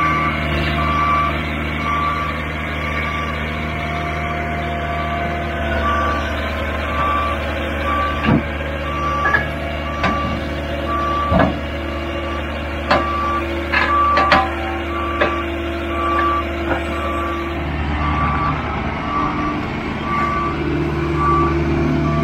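A loader's diesel engine running while its reversing alarm beeps a single high tone, a little more than once a second. A few sharp clunks sound through the middle, and the engine eases off near the end.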